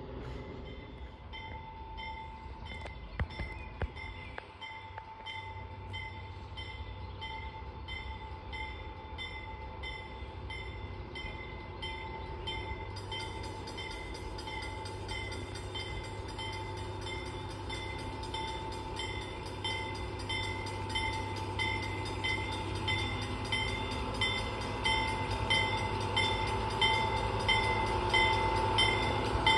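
Diesel locomotive approaching, its engine rumble growing louder toward the end, while a bell rings steadily at about one and a half strokes a second.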